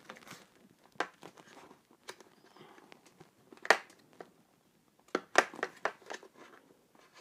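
Hard plastic clicking and rubbing as fingers work the visor release and pivot mechanism of an OMP Circuit kart helmet to unlatch the clear visor. There are scattered light clicks, with a sharper click a little past halfway and a short run of clicks about five seconds in.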